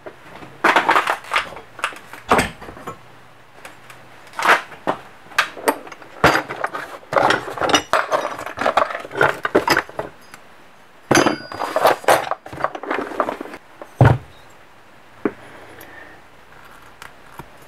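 Metal engine parts clattering and clinking as they are rummaged through in a plastic parts bin: a quick run of sharp knocks and clinks, with one heavy thump about 14 seconds in, then only a few light clicks.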